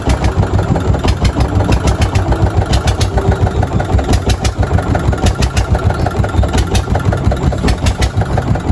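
Engine running steadily with a rapid, even chugging beat of about five pulses a second.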